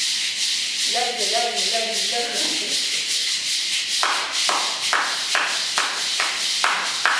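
Pair of maracas shaken in a quick, steady rhythm. About four seconds in, hand claps join, roughly two a second.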